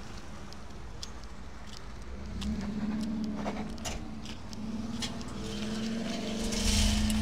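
A 1949 Mercury's engine running at idle. It rises and falls in pitch briefly about three seconds in, then climbs slowly in pitch toward the end as it is revved. Scattered light clicks and scuffs come through over it.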